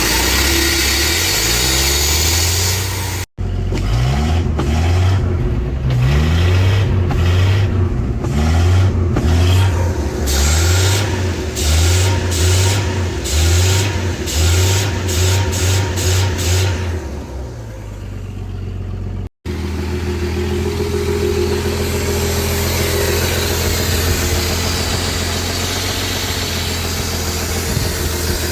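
Ford 300 inline-six engine running on a Briggs & Stratton lawnmower carburetor, revved in quick throttle blips about once a second, then running steadily. The sound cuts off abruptly twice.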